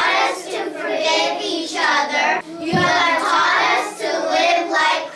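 A group of children singing together in unison, in phrases about a second long.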